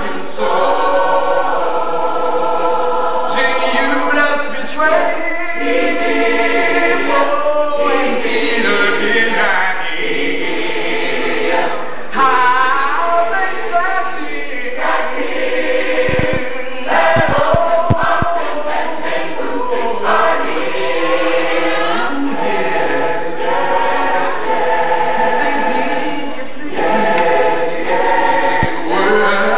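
Mixed-voice gospel choir singing a cappella in full harmony, with no instruments.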